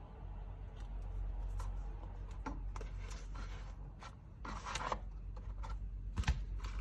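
Handling noises from unboxing a leather phone case: scattered light scrapes and clicks, a longer rub about halfway, and a sharp knock near the end, over a steady low hum.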